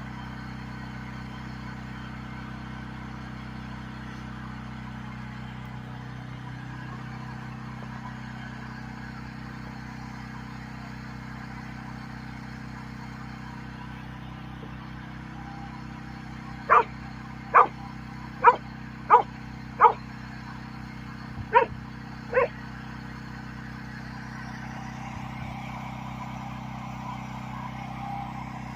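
A dog barking seven times: five quick barks, a short pause, then two more, over a steady low hum.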